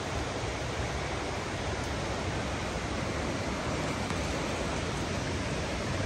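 Steady rush of flowing river water.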